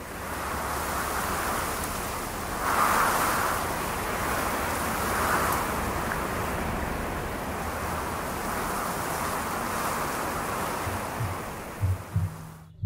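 Wind blowing across the microphone, a steady rush with a low rumble that swells in gusts. Near the end a few low thumps begin, and the rush cuts off abruptly just before the end.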